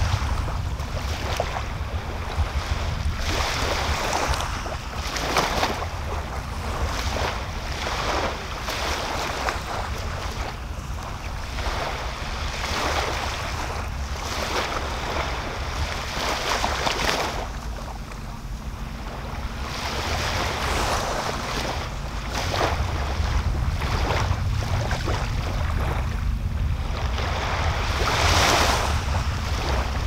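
Small waves washing up on a sandy beach, each wash swelling and fading every few seconds. Under them is a steady low rumble of wind buffeting the microphone.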